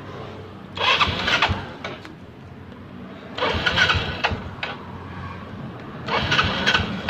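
Yamaha Mio scooter's small four-stroke single being cranked to start: three bursts of about a second each, a few seconds apart.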